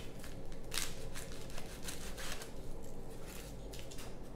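Thin clear plastic bag crinkling and rustling in the hands as it is slid out of a cardboard coin mailer, in a run of irregular small crackles.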